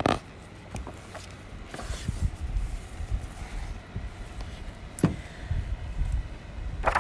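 Wind buffeting the microphone: a gusty low rumble that builds from about two seconds in. A few short clicks and rustles sound through it.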